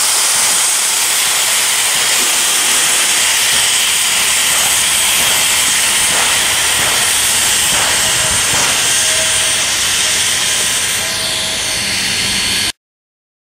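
Steam locomotive hissing steadily and loudly with escaping steam, until the sound cuts off abruptly near the end.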